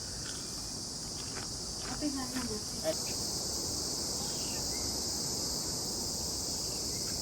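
Insects shrilling in the surrounding vegetation: a steady high-pitched buzz that grows louder about three seconds in. Faint distant voices are heard in the first few seconds.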